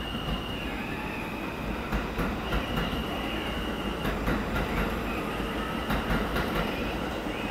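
New York City Subway R160-series F train running past on elevated track, its wheels clacking irregularly over rail joints under a steady rumble, with a thin high-pitched squeal from the wheels.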